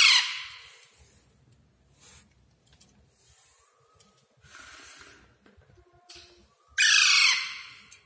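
Young green parrot chick giving two loud, harsh rasping screeches, one right at the start and one about seven seconds in, each fading out over a second or so, with a few fainter calls between. These are the begging calls of a hungry hand-fed chick.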